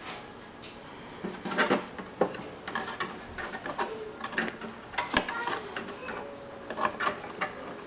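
Metal and plastic computer parts being handled inside a desktop PC case: irregular clicks, taps and scrapes, with a brief squeak or two.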